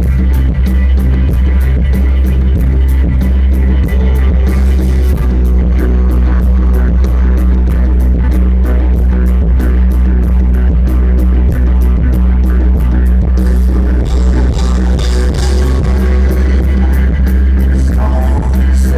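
Live rock band playing loud amplified music with electric guitars, drums and keyboards over a heavy, steady low bass. A fast, even high tick runs at about five a second and drops out about two-thirds of the way through.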